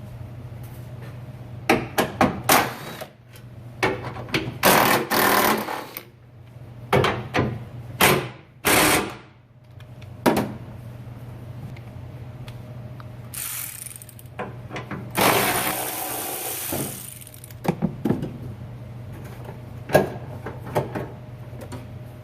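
Handheld power tool with a socket run in short bursts, about seven times, backing out the 10 mm bolts that hold a pickup's fender, over a steady low hum.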